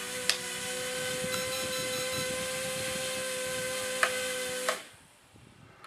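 The motors and propellers of an HF F803C micro quadcopter whine steadily with the transmitter switched off. This is the fault the drone has on losing its signal: the motors keep spinning and speed up instead of stopping, which lets it fly away. The whine stops suddenly about three-quarters of the way through, and there are two faint clicks, one near the start and one shortly before the stop.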